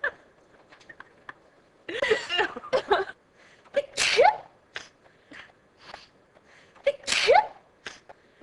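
A young woman sneezing: two loud sneezes about three seconds apart, each ending in a rising voiced cry, with short sniffs and breaths around them.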